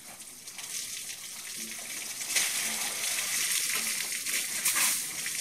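Water spraying over an elephant's body and pattering down around it as the elephant bathes itself with its trunk. It is a steady hiss that grows louder about halfway through.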